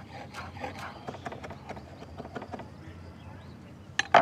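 Knife chopping sage and oregano leaves finely on a wooden cutting board, about four quick strokes a second, easing off after two and a half seconds. Near the end come two loud knocks of the knife on the board.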